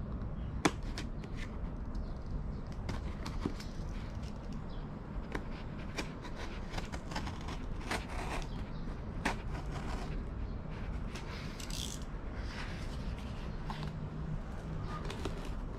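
Small cardboard box being cut open with a utility knife and its flaps pulled apart: scattered scrapes, crackles and clicks of blade and cardboard, with one sharp click under a second in.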